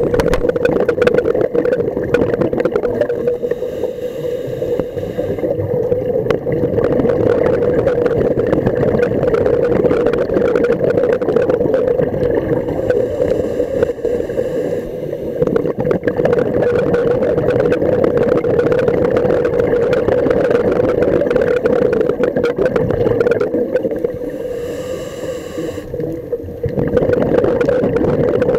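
Underwater sound picked up through a camera's waterproof housing: a steady muffled drone with dense crackling. The crackle thins out three times for a few seconds each, about ten seconds apart.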